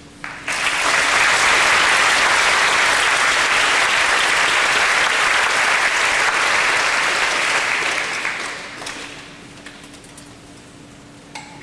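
Audience applauding, starting suddenly about half a second in and dying away after about eight seconds.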